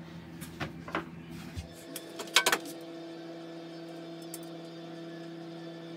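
Handling noises at a table saw: a few light taps in the first second, then a cluster of sharp clicks and knocks about two and a half seconds in, as wood and tools are handled. After that a steady low hum carries on.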